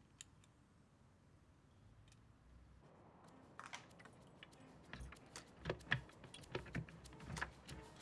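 A key working in a door lock, with a bunch of keys jangling and the lock and handle clicking, a quick run of metallic clicks that starts about three and a half seconds in and grows busier. Before that, only faint room tone.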